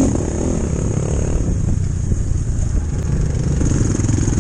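Enduro motorcycle engine running steadily while riding, a low, rapid, even pulsing.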